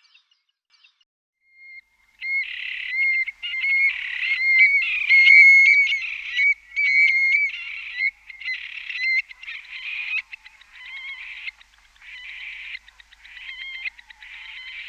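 Rainforest animal calls: after about two seconds of silence, a dense run of repeated short, pitched calls starts, several callers overlapping and going on without a break.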